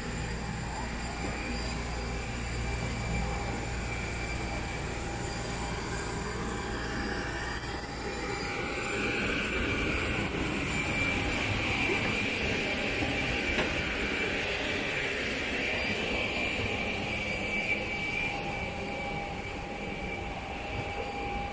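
Jet aircraft noise: a steady high whine over a low rumble, growing a little brighter from about eight seconds in.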